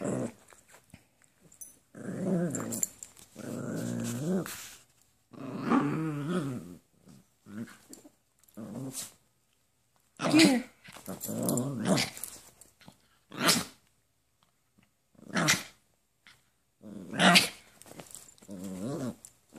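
Small dogs play-fighting, growling in repeated bursts of about a second each, with a few short sharp barks in the second half.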